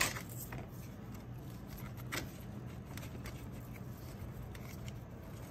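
Faint rustling and soft scattered taps of hands pressing damp potting soil into a clay pot around a monkey monstera, its leaves brushing together, over a steady low hum.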